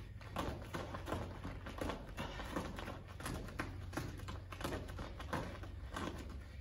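Bare feet landing on foam martial-arts floor mats during repeated knee lifts, giving soft slaps or taps at about two to three a second.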